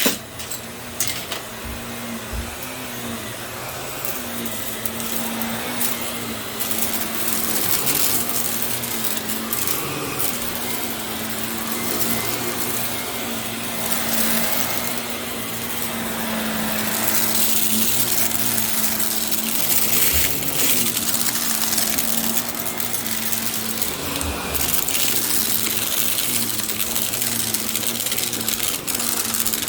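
Bissell compact vacuum cleaner running: a steady motor hum with airflow hiss, and scattered clicks and knocks as it is pushed over the floor. The hum briefly wavers a few times, and the running gets a little louder about halfway through.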